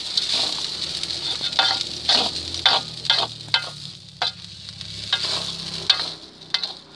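Rice stir-frying in a wok, sizzling steadily. A plastic spatula turns and scrapes it against the pan in about ten short, irregular strokes.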